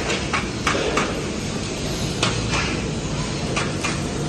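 Steel fabrication workshop noise around robotic welding cells: a steady machine hum and hiss, broken by several sharp, irregular metallic knocks and clanks.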